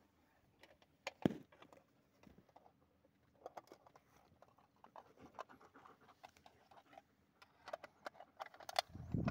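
Dogs panting close to the microphone, with irregular rustling and soft knocks from fur being stroked and the phone being handled; a sharp knock about a second in and a louder cluster of handling noise near the end.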